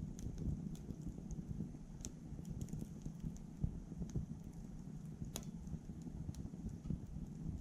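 Wood burning in a small titanium wood stove, crackling with irregular sharp pops and ticks over a low steady rumble of flame; the loudest pop comes about five seconds in.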